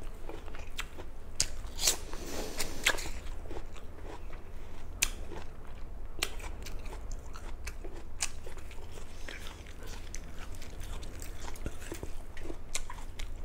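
Close-miked biting and chewing of crisp Fuji apple slices: sharp juicy crunches, the loudest in the first few seconds, then a run of softer chewing clicks.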